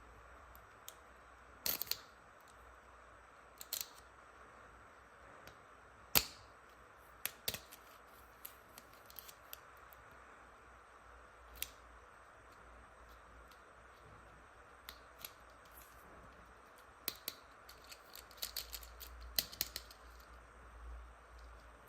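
Hard plastic toy pieces being handled: scattered clicks and taps, the sharpest about six seconds in, with a quicker run of small clicks and rattles near the end.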